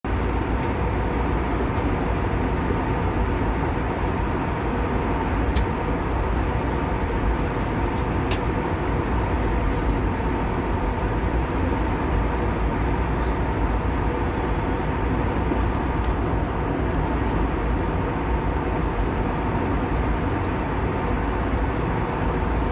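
Airliner cabin noise in flight: a loud, steady rush of engines and airflow with a faint steady hum, and a few faint clicks about five and eight seconds in.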